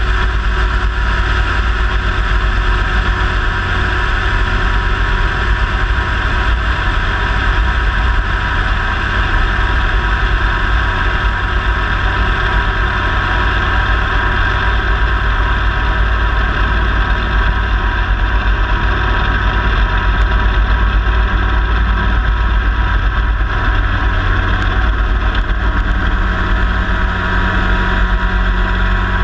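CH7 Kompress ultralight helicopter in low-level flight, its engine and rotor running steadily, heard close up from a camera on the skid.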